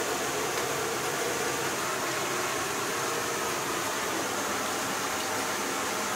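Steady, even hiss of kitchen background noise, like a ventilation fan running.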